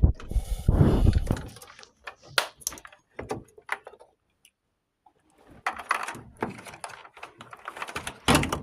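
Handling noises from work on a washing machine: a heavy low rumbling thump in the first second and a half, then scattered clicks, knocks and rattles, with a silent gap of about a second in the middle.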